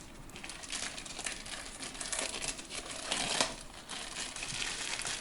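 Packaging being handled and crinkled during an unboxing, in irregular rustling flurries with a louder burst about three seconds in.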